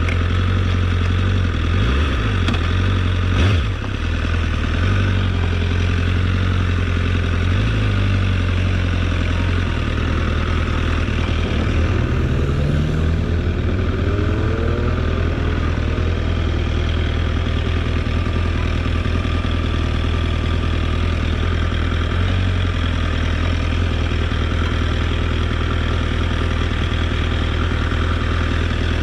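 Motorcycle engine running steadily, with a second engine note rising in pitch for a couple of seconds about halfway through.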